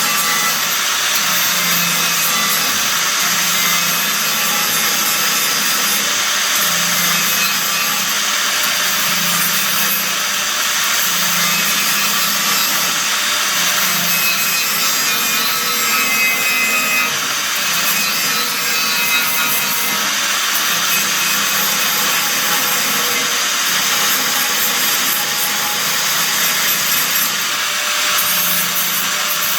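Angle grinder grinding down the steel floor panel of a car: a steady hiss of abrasive on metal, with the motor's hum swelling and easing as the disc is pressed on and lifted off the work.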